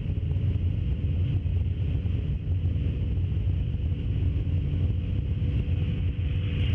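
Steady low drone of a C-17A Globemaster's four turbofan engines in flight, heard inside the aircraft, with a faint steady hum over the rumble.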